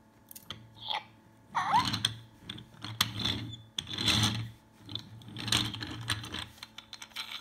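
Robot toy cat's small geared motors whirring and clicking in bursts while its plastic body is handled and turned over, with a short electronic chirp about a second and a half in.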